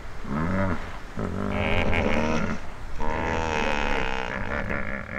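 African elephants of a breeding herd calling: several pitched, rising-and-falling calls in a row, the longest starting about three seconds in.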